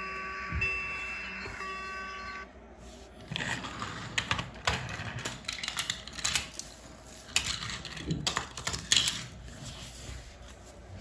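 Toy railroad crossing signal's electronic bell tones, alternating about once a second, stopping about two and a half seconds in. Irregular clicks and rattles follow.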